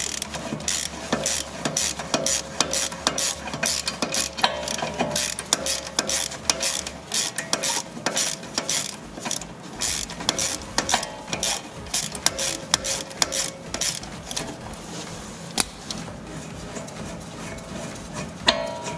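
Ratchet wrench clicking as a rear brake caliper bracket bolt is backed out: a long run of rapid clicks that thins out after about fourteen seconds.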